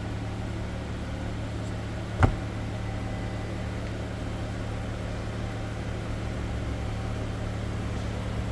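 A steady low mechanical hum, with one sharp click about two seconds in.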